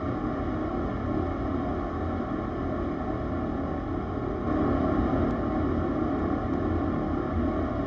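RC crawler truck's electric motor and drivetrain running steadily, a little louder from about halfway in.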